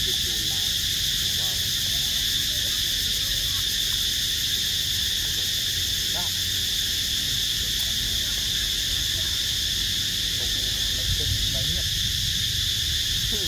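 Steady high-pitched insect buzzing over a low rumble, with a few faint, brief wavering calls now and then.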